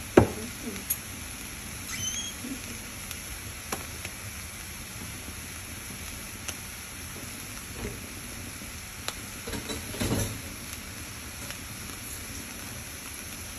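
Shredded beef and minced garlic sizzling in a frying pan, a steady hiss broken by a few sharp pops and crackles, the loudest just after the start and a short cluster about ten seconds in.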